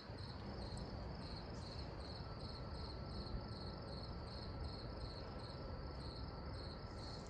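Crickets chirping steadily in an even rhythm, about three chirps a second, over a faint low rumble.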